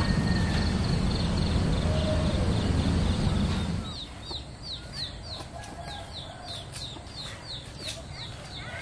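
Rural outdoor sounds: a rooster crows once over a steady low rumble in the first half; then, after the rumble drops away about four seconds in, a small bird gives a run of short, high, down-slurred chirps about twice a second.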